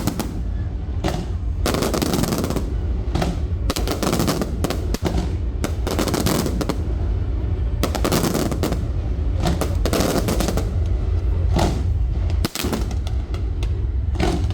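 Fireworks display: a rapid, irregular string of loud bangs and crackling bursts, many overlapping, over a steady low rumble.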